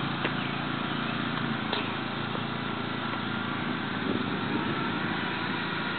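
Riding lawn mower engine running steadily.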